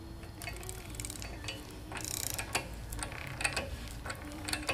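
Ratchet wrench clicking in short, irregular runs as it cranks the jacking screw of a puller, drawing the ram out of a hydraulic steering cylinder.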